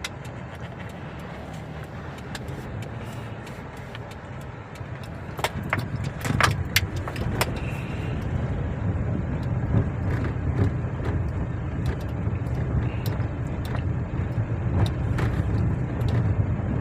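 Car engine running with a steady low rumble that gets louder about five and a half seconds in, with scattered clicks and knocks. The engine is misfiring and struggling to pull, which the mechanic puts down to cylinder number 1 having no power.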